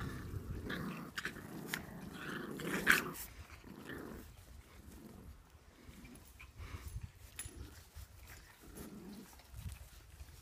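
Boxer and chihuahua puppies play-fighting, with small puppy growls. The sounds are busiest over the first four seconds, with a sharp loudest moment about three seconds in, then fade to fainter scattered scuffles.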